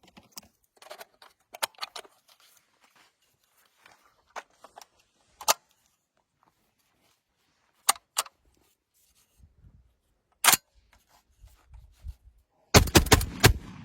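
Bull-pup shotgun being fired: single sharp reports spaced a few seconds apart, then a quick cluster of loud reports and clatter near the end.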